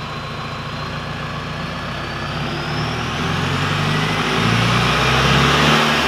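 Mahindra Thar's diesel engine running through a T8 aftermarket performance exhaust: steady at first, then revving up and getting louder over the second half, with a high whistle rising in pitch as it climbs.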